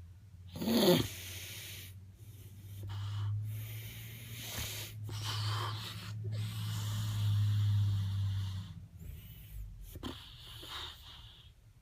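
Snoring: several long, wheezing breaths in and out, with a steady low drone under the longest ones. A short, louder sound gliding in pitch comes about a second in.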